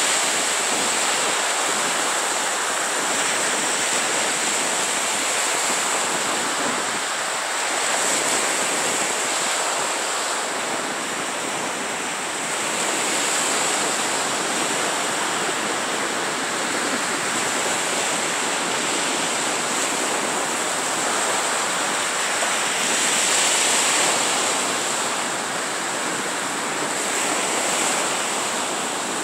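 Small surf breaking and washing up a sandy beach: a continuous rushing wash that swells as each wave breaks and eases between them.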